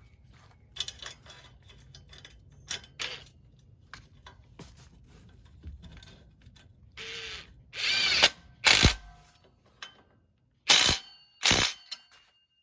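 Ratchet wrench clicking in irregular spurts as an exhaust clamp is tightened by hand, with a few louder rasping strokes in the second half.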